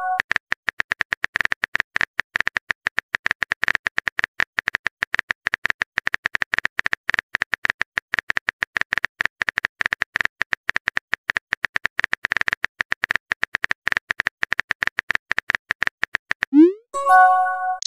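Rapid phone-keyboard typing clicks, many a second and steady, as a text message is typed out. Near the end a short rising swoosh and a brief chime sound as the message is sent.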